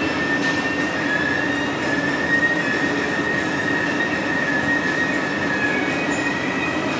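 Steady roar of a glassblowing hot shop's gas-fired glory holes and their combustion blowers, with a thin high whine that wavers slightly in pitch.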